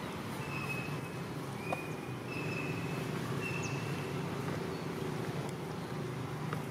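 Outdoor background sound: a steady low hum with four short, high, steady whistled notes over it, each about half a second long.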